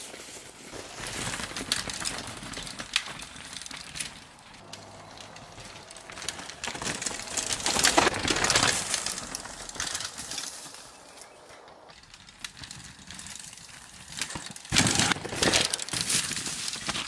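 Mountain bike riding over an overgrown dirt trail: tyres crunching through grass and brush and vegetation rustling. The noise swells loudest twice, once in the middle and again near the end, as the bike passes close.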